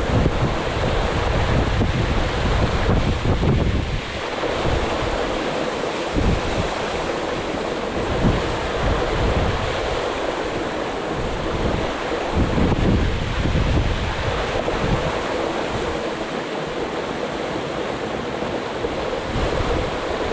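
Steady roar of a tall plunge waterfall, heard from close below the falls, with irregular gusts of wind buffeting the microphone.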